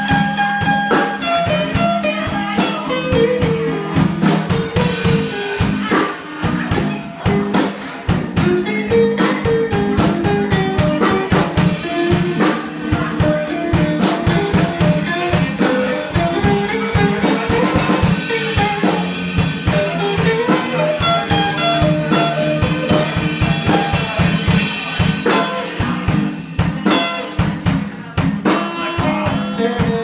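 Live band playing: amplified electric guitars with a melodic line moving up and down over a steady low part, and a drum kit keeping a busy beat.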